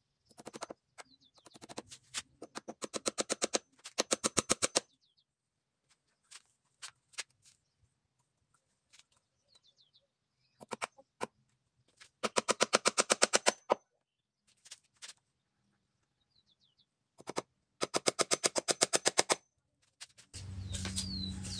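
Hammer driving nails into wooden fence posts to fasten chicken wire, in several quick runs of strikes, many a second, with pauses between. Small birds chirp faintly in the gaps, and a steady low hum starts near the end.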